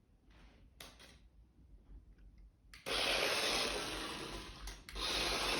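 A toy remote-control car's electric motor and wheels running: a loud, even rush that starts abruptly about three seconds in, cuts out briefly near the end, then starts again. Faint clicks of the controller before it.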